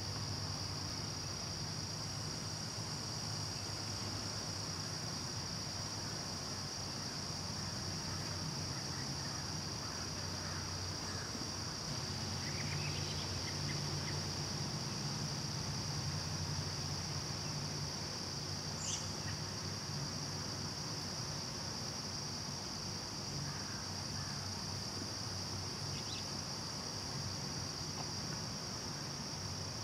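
Outdoor insect chorus: a continuous high-pitched trill that holds steady throughout, over a low steady hum, with a few faint short chirps about a third, two thirds and seven eighths of the way in.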